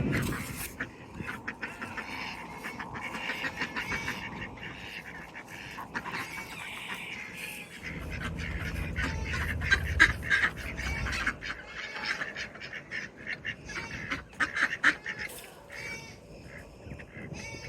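Domestic ducks quacking, many short calls repeated and overlapping, with a low rumble for a few seconds in the middle.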